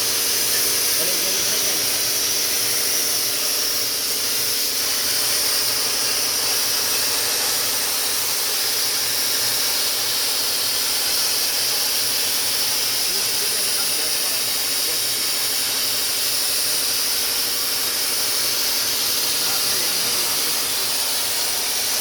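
CNC plasma cutter's torch cutting steadily: a loud, even hiss with a faint steady hum beneath it.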